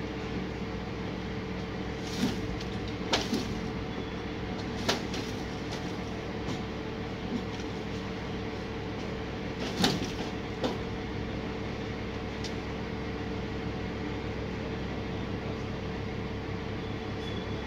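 Heavy truck engine running steadily, with several short knocks scattered through, the loudest about ten seconds in.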